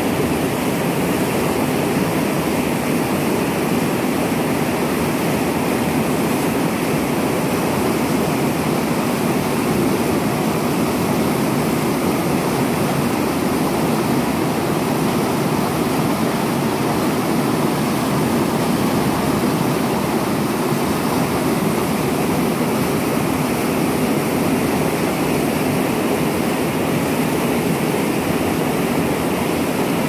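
Whitewater rapids of a fast river rushing over boulders: a steady, unbroken rush of water, fuller in the low-middle range.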